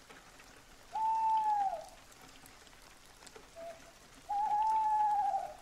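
Faint steady rain with two long, even calls of one pitch, each about a second, the first tailing off downward, and a short faint call between them, like an owl calling at night.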